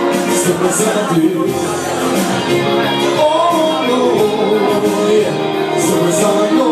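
Live band playing a song in a pub: a singer's voice carrying the melody over keyboard and the rest of the band.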